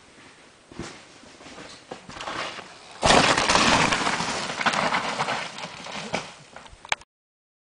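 Mountain bike riding past close by: tyres rushing over crusty snow and dead leaves, loud and sudden from about three seconds in and easing off with a few sharp clicks. Before it, only faint scattered crackles; the sound cuts off abruptly near the end.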